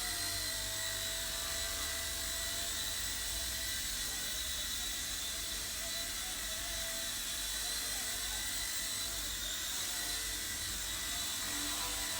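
Eachine E129 micro RC helicopter in flight: a steady, high-pitched electric motor and rotor whine, its pitch wavering slightly as it manoeuvres.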